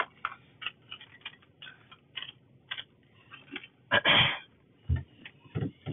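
Pen writing on a paper receipt: a string of short strokes, two or three a second, then a louder noisy sound lasting about half a second around four seconds in and a low knock about a second later.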